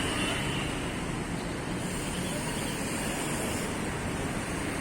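Steady street traffic noise: a continuous wash of passing vehicles with no single event standing out.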